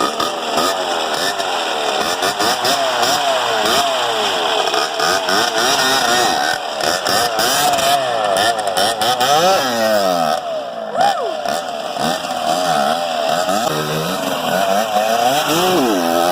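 Kawasaki KX dirt bike engine running and being revved up and down over and over, the pitch rising and falling throughout. It runs as a leak test of a freshly rebuilt clutch.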